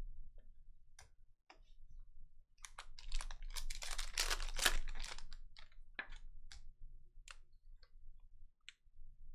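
Foil wrapper of a Panini Mosaic basketball hobby pack crinkling and tearing open for a few seconds in the middle, with scattered light clicks of trading cards being handled before and after.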